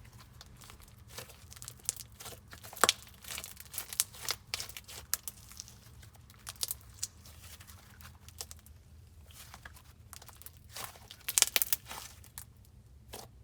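Icing slime being squished and pressed by hand, giving irregular sharp sticky clicks and pops, with a quick dense run of them near the end.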